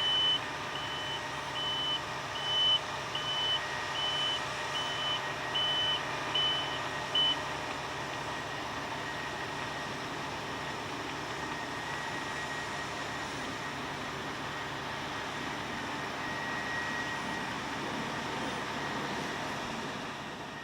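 Heavy farm machinery running steadily, with a vehicle's reversing alarm beeping about once every 0.8 s for the first seven seconds, then stopping.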